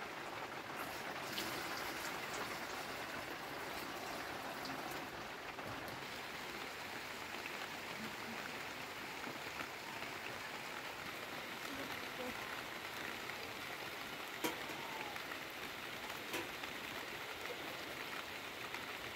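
Steady rain falling, an even hiss with a couple of light knocks in the second half.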